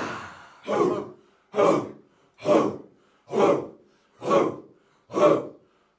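A group of voices giving short, breathy shouts in unison, six times at an even beat a little faster than one a second, with silence between them. Before the first shout, the previous shout dies away.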